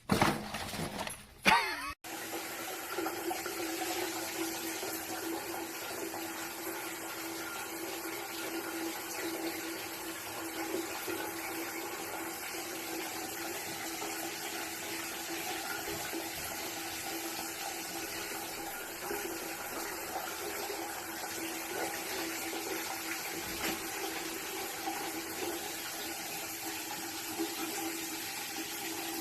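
Water running steadily with an even rushing noise that starts abruptly about two seconds in, after a short loud sound with a sliding pitch.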